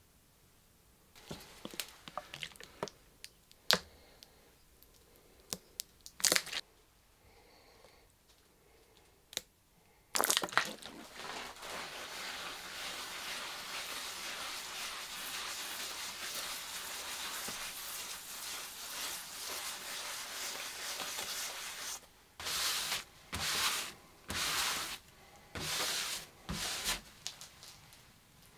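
Scattered light knocks and clicks, then a green scouring pad scrubbing the wet veneered top of an old wooden chest of drawers to strip its old finish, a steady scrubbing for about twelve seconds. Near the end come five short swipes of blue paper towel wiping the surface.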